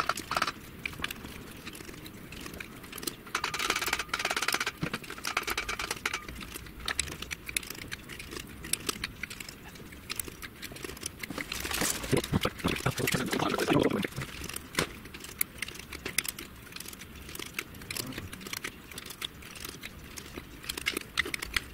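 Light, irregular metallic clicks and rattles of a trolley jack's hydraulic pump being worked by hand, its plunger pushed in and out to draw freshly added oil into the reservoir. A busier stretch of handling noise comes about twelve to fourteen seconds in.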